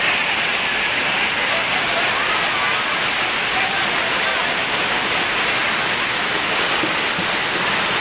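Steady rush of falling and flowing water from a waterfall and its rocky stream, with the indistinct chatter of a crowd underneath.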